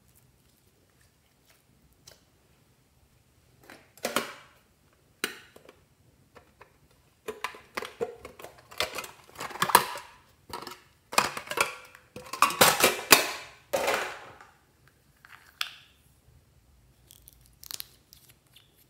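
A metal spatula scraping and crumbling pressed glitter eyeshadow in its pan, heard as a series of short scratchy strokes that come thickest in the middle.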